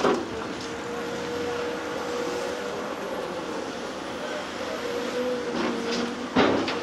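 Caterpillar 336F LN hydraulic excavator running steadily, its engine and hydraulics giving a constant whine. A clatter of impacts near the end, like concrete debris knocking.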